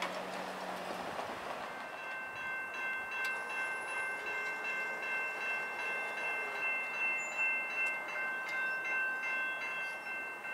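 Grade-crossing warning bell ringing steadily as a train approaches, starting about two seconds in and pulsing about one and a half times a second.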